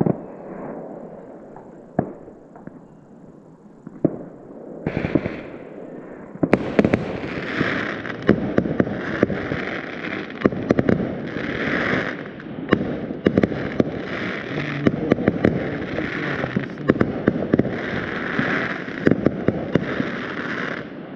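Distant fireworks and firecrackers going off: a few scattered bangs at first, then from about six seconds in a dense, continuous crackle of many pops and bangs.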